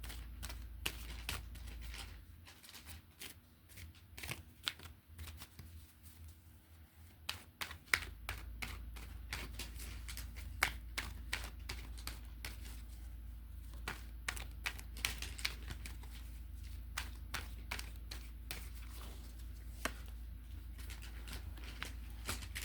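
Tarot cards being shuffled and handled: a long run of light, irregular card flicks and clicks. Under them runs a steady low hum from a heater, which cuts out about two seconds in and comes back about eight seconds in.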